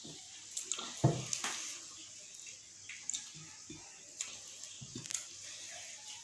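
Wet eating sounds of rice and curry eaten by hand: chewing and lip smacks, and fingers squishing rice on plates, in short scattered clicks. The loudest is a brief knock about a second in.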